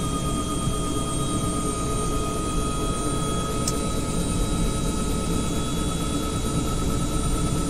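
Helicopter running during start-up: a steady high whine over a low rumble, holding even throughout.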